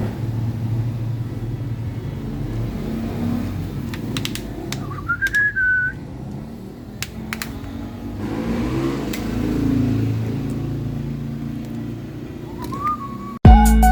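Steady low background rumble with a few clicks and a short rising whistle about five seconds in, another near the end. Loud music starts just before the end.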